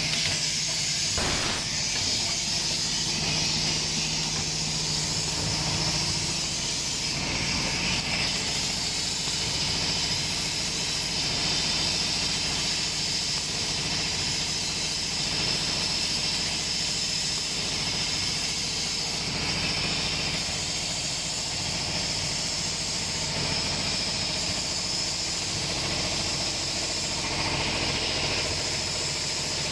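Vertical form-fill-seal bag-making packaging machine running continuously, a steady mechanical hiss and hum, with a low hum that drops away after about six seconds.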